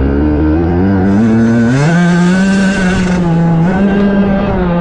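Dirt bike engine heard from on board, revving up under acceleration: its pitch climbs over the first two seconds, holds high with a brief dip about three seconds in, then drops near the end as the throttle eases off.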